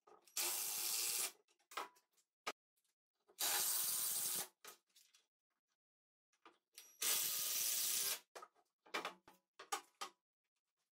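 Cordless drill driving pocket-hole screws into wood, three runs of about a second each, with small clicks of handling between them.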